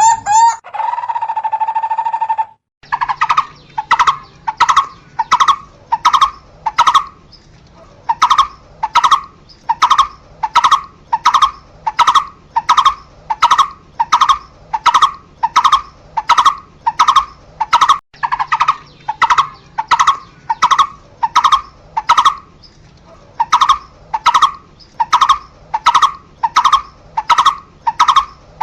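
Barbet calling a long series of single, evenly spaced hollow notes, about one and a half a second, with brief breaks. A different steady held tone fills the first two seconds or so.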